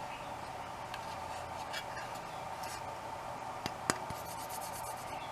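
Light clicks and rubbing from parts being handled, with two sharp clicks close together near the end, over a steady low hum.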